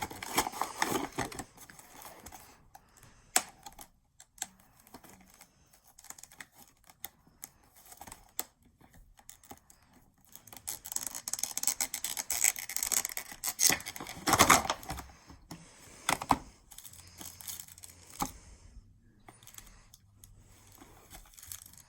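Unboxing a die-cast model airliner: cardboard box and packaging being handled, with scattered clicks and short bursts of rustling and scraping, busiest about 11 to 15 seconds in.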